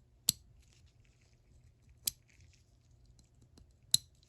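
Three sharp clicks about two seconds apart, with faint rustling between them: small parts of a disassembled ratchet's mechanism being handled.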